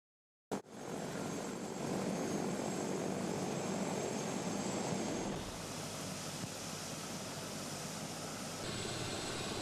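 Helicopter running steadily, a dense engine and rotor noise with a faint high whine. It cuts in suddenly about half a second in and shifts in tone about five seconds in and again near the end.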